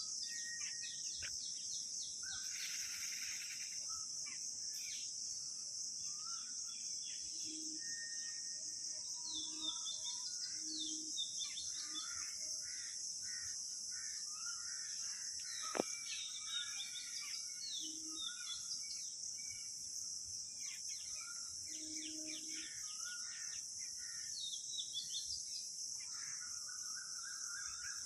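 Outdoor birdsong and insect chorus: a steady high-pitched insect drone with many birds chirping over it, a few low short calls between them, and a single sharp click about sixteen seconds in.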